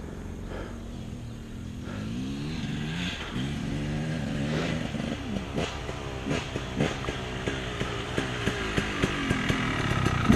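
A dirt bike's engine approaching and growing louder, its pitch rising and falling as the throttle is worked, with sharp ticks in the second half as it comes close.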